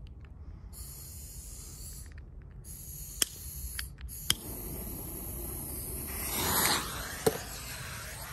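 Lit fuse of an 80 g quarter-stick salute hissing steadily as it burns down, with a few sharp clicks and a swell of noise near the end.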